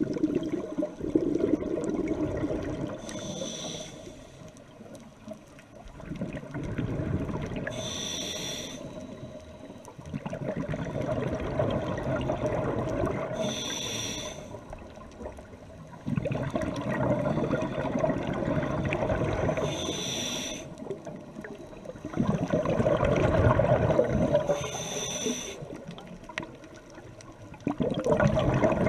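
Scuba diver breathing through a regulator underwater: a short hissing inhale about every five to six seconds, each followed by a long burst of exhaled bubbles.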